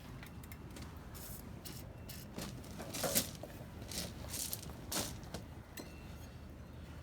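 A handful of short clatters and rattles, as of small objects being handled, over a low steady hum; the loudest comes about three seconds in.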